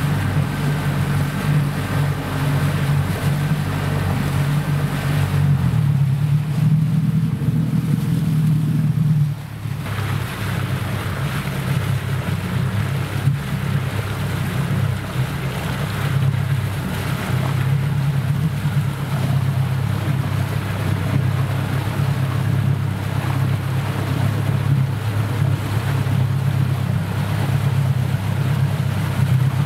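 Motor launch engine running steadily under way, with water wash and wind noise on the microphone; the engine note changes abruptly about nine seconds in, then runs on steadily.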